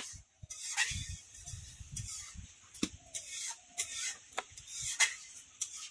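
Small kitchen knife cutting green chillies by hand over a wooden cutting board: a series of crisp, irregular cuts and taps, roughly one a second.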